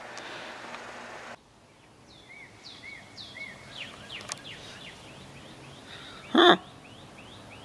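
Steady room hiss that cuts off abruptly about a second and a half in, giving way to birds singing outdoors: a run of short, repeated arching chirps and quick sweeping notes. Near the end one short, loud sound stands out above the birdsong.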